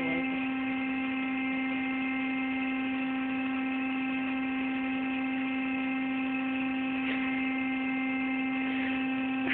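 Electric air pump inflating an air mattress, running with a steady, even hum.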